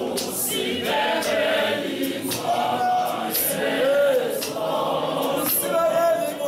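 Church choir singing a cappella, men's and women's voices together with one man's voice leading loudly in front, with sharp beats scattered through the singing.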